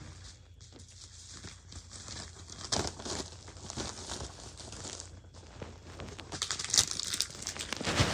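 A mailing envelope being torn open and its packaging crinkled by hand: irregular rustling and tearing that grows louder near the end.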